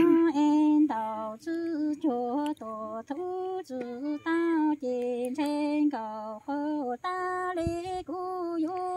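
A woman's unaccompanied voice chanting Hmong sung poetry (lus txaj), in short phrases of held notes that slide between pitches, with brief breaks between them.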